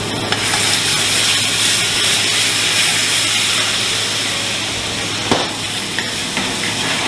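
Food sizzling in a hot frying pan on a gas range, a steady hiss, as a ladle stirs it. A steady low hum runs underneath, and there is one sharp click about five seconds in.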